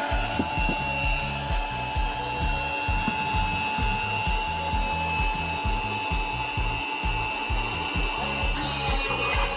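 Handheld cordless drills running with a steady high whine, over background music with a regular low beat.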